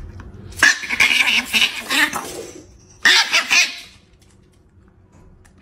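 A Chihuahua snarling: one long noisy burst, then a shorter choppy one about three seconds in.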